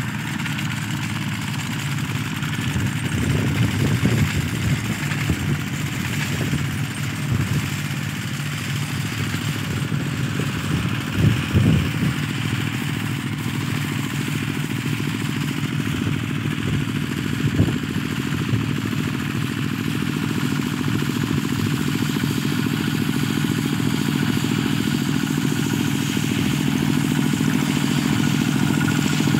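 Two-wheel walking tractors (power tillers) running steadily as they plough a muddy field, with a few short knocks along the way. The engine grows louder near the end as one tiller comes close.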